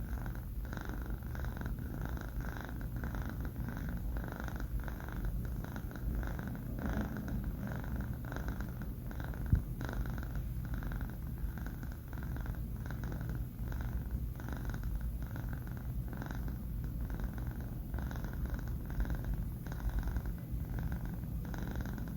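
A sleeping four-month-old kitten purring steadily, with one brief click about nine and a half seconds in.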